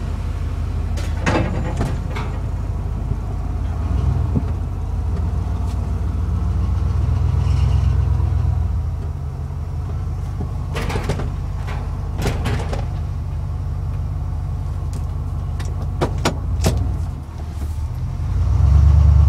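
Ford F-150 pickup driving at low speed, its engine and drivetrain making a steady low hum that swells and eases as the speed changes, with a few short clicks or knocks. The truck is running normally here, without the grinding noise.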